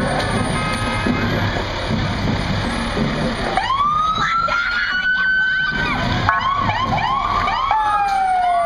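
Fire truck sirens: about three and a half seconds in a siren winds up and holds high, then falls away and gives way to quicker rising-and-falling sweeps from more than one siren, ending in a long falling wail. Underneath is the steady low rumble of the passing truck's engine.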